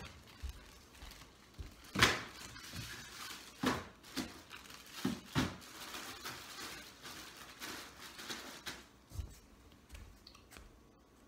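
Scattered knocks and thuds of household items being put into an empty cardboard shipping box, the loudest about two seconds in, with quieter handling sounds between.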